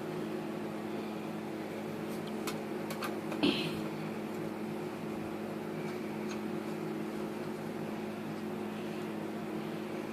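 A steady low electrical hum, with a few faint clicks and one louder click and scrape about three and a half seconds in, as screws are driven into a hard drive's mounting holes with a screwdriver.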